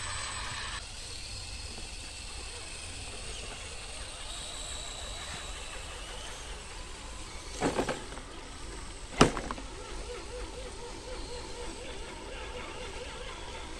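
Electric RC crawler truck driving over dirt and wooden planks, its motor and gears giving a faint whine that wanders in pitch over a steady low rumble. Two loud sharp knocks stand out, a quick triple about eight seconds in and a single crack about a second later.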